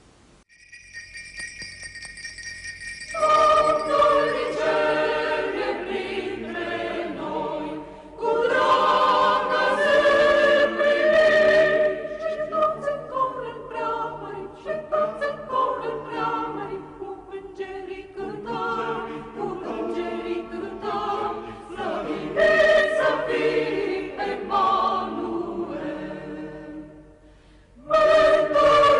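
A choir singing a sacred hymn in long held phrases. It starts softly, the voices come in fully about three seconds in, and a new phrase begins after a short pause near the end.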